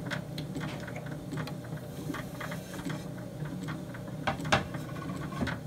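1929 RCA transcription turntable running, its motor drive giving a steady mechanical hum with light ticking. The tonearm is lifted and the disc taken off the platter, with a few sharper handling clicks about four seconds in.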